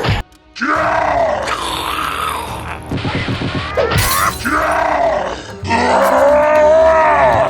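Loud grunting and groaning cries, several short ones and then a longer drawn-out one near the end, over action music, with a sharp crash about four seconds in.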